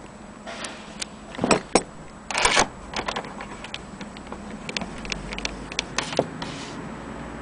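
Steel winding crank of an HMV Model 101 portable gramophone clattering against the case as it is fitted into the winding socket, two louder knocks about one and a half and two and a half seconds in, then a run of light irregular clicks as the crank is worked in the socket.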